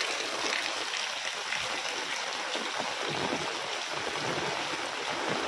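Heavy rain falling steadily, with water streaming off the tiled roof edges: an even hiss with no pauses.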